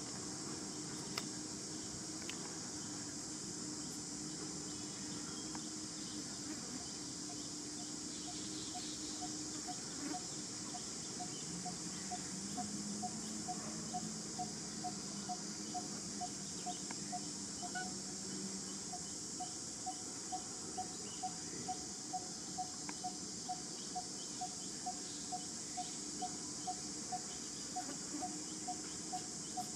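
Steady high-pitched insect hiss. From about eight seconds in, a regular short tick repeats about two to three times a second.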